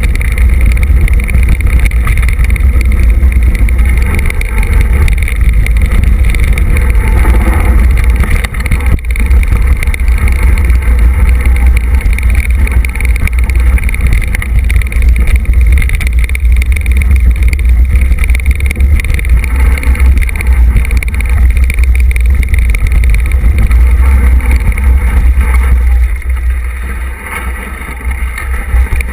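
Loud, steady wind rumble on the microphone of a camera mounted on a mountain bike riding a rough dirt trail, mixed with the jolts and rattle of the bike over the ground; it eases a little near the end.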